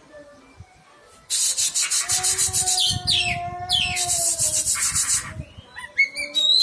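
Oriental magpie-robin (kacer) singing: harsh rapid rasping chatter starting about a second in, broken by quick falling whistled notes, with clearer whistled phrases near the end.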